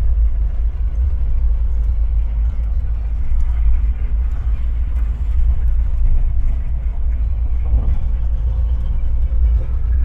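Volkswagen Kombi van driving slowly through town streets: a steady low rumble of engine and road noise.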